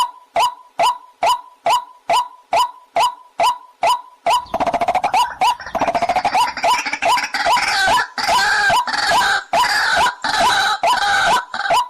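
Waterhen call recording of the kind played as a hunting lure: a short rising call repeated evenly about two and a half times a second. About four seconds in a denser chorus of several overlapping calls joins it.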